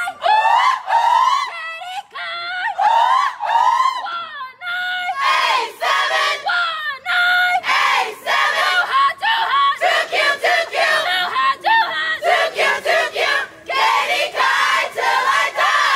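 A group of young women chanting and yelling together in high-pitched shouted phrases with short breaks between them: a sorority call.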